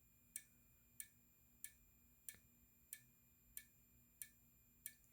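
Simplex 4093-9219 horn/strobe with the horn silenced, its strobe flashing: each flash gives a faint tick, about three every two seconds. A faint steady high-pitched whine runs under the ticks.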